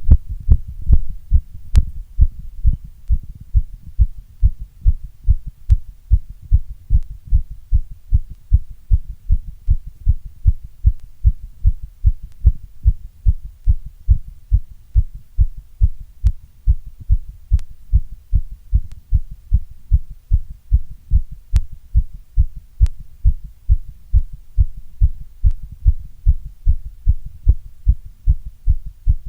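Heartbeat, a steady, even rhythm of low, dull thumps with no other sound.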